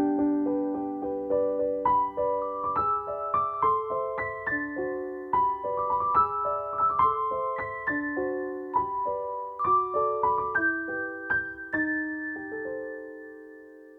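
Background music: a gentle solo piano melody, single notes over soft held chords. The last chord rings out and fades away near the end.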